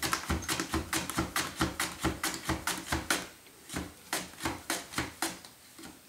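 Raw red potato being sliced on a handheld mandoline: a quick run of short rhythmic scraping strokes, about four or five a second, slowing to about two a second in the second half.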